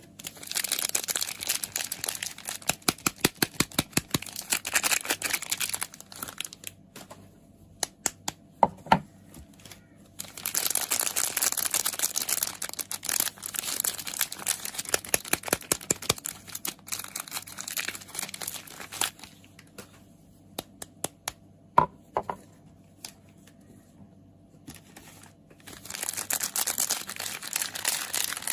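Soap packaging crinkling as it is unwrapped, in three spells of rustling, with sharp separate taps between them.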